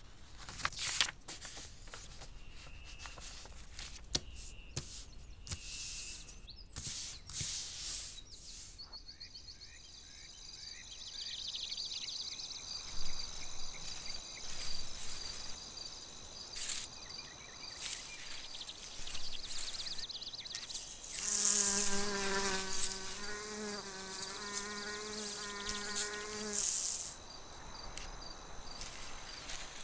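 A bumblebee buzzes in flight for about five seconds, starting about two-thirds of the way in, over a background of high, pulsing insect chirping. There are scattered clicks in the first several seconds.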